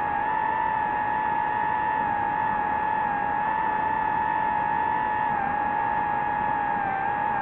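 DJI FPV drone's motors and propellers whining steadily over a rushing hiss, as picked up by the drone's own microphone. The pitch dips slightly about five seconds in and again near the end, as the throttle eases.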